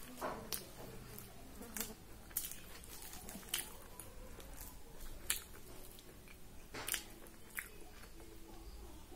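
Close-up eating sounds: a fried puri torn by hand over a steel plate and chewed, heard as irregular sharp clicks and crackles.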